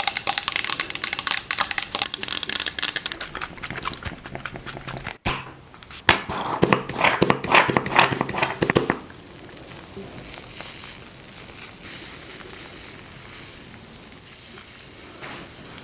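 Close-up crinkling, crackling rubbing of makeup being removed: two dense runs of rapid crackles, the second starting after a brief break about five seconds in, then softer steady rubbing from about nine seconds on.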